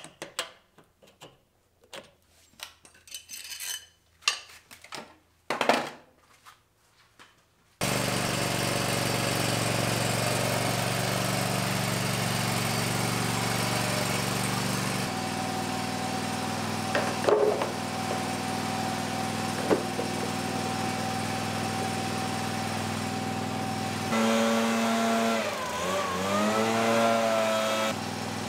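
A hand wrench clicking and knocking on a spindle pulley cover bolt of a Bad Boy Maverick zero-turn mower deck. Then, about eight seconds in, the mower's engine starts being heard running steadily, its speed dipping and picking back up near the end.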